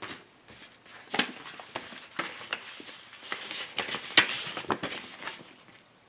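Paper cards and envelopes being handled and shuffled on a table: a run of short rustles and light taps that stops just past five seconds in.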